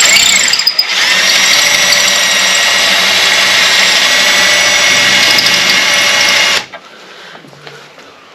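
Power drill running at speed, drilling out a broken-off 6 mm bolt in the truck's sheet metal: a steady high whine that briefly dips and picks up again about a second in, then stops abruptly about six and a half seconds in.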